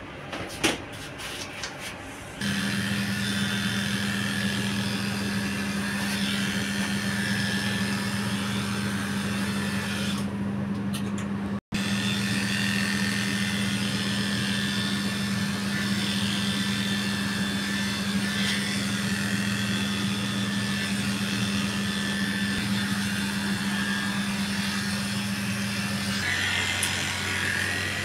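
Electric pet hair clippers switch on about two seconds in and run with a steady buzzing hum while shaving a long-haired cat's coat. A few light clicks come before the motor starts, and the sound breaks off briefly a little before halfway.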